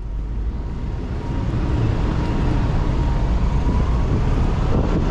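Street traffic noise beside a bus lane, with TransMilenio buses and motorcycles running close by. A faint whine rises slightly a little past the middle.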